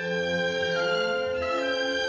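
Orchestral film score: bowed strings hold long low notes while a higher melody line moves in small steps down and back up.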